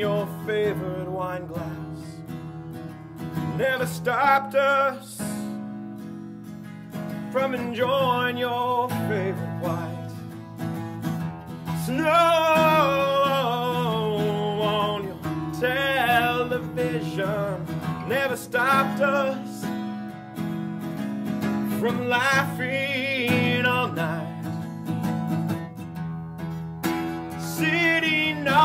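Acoustic guitar played steadily in a slow song, with a man's voice singing over it in phrases at times.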